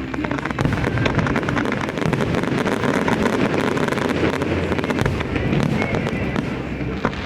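Fireworks display: a dense run of rapid crackling pops, thinning out after about five seconds, with deep booms beneath and faint music behind.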